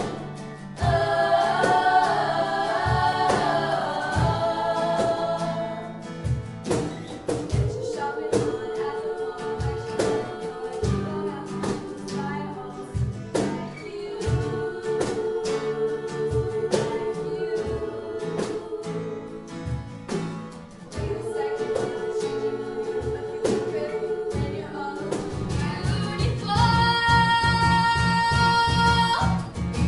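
Music with singing over a steady beat, with long held notes.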